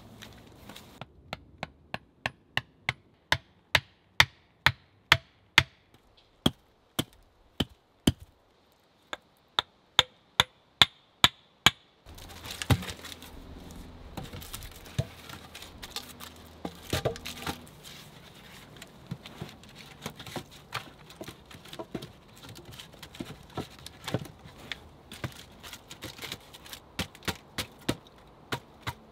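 Wood knocking on wood: a fast, even run of sharp taps, about two or three a second, for the first twelve seconds. After that come irregular knocks as logs are set down on a log shelter floor, ending in one louder knock.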